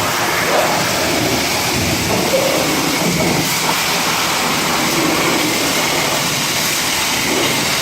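Pressure washer wand spraying a steady high-pressure jet of water, a loud even hiss.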